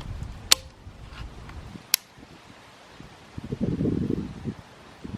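Handling of a 50 lb pistol crossbow between shots: two sharp clicks, about half a second and two seconds in, then a brief low rustling.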